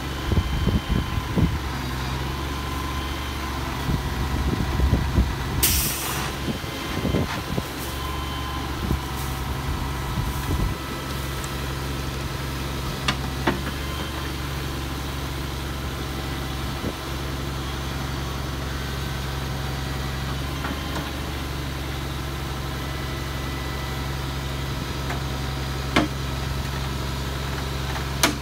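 Engine of the heavy machine moving a large boxed oak tree, running at a steady low drone. Knocks and creaks come through in the first ten seconds, with a short hiss about six seconds in and a few sharp clicks later on.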